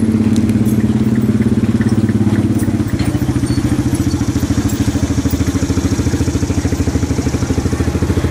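A nearby engine idling steadily, with a fast, even pulse.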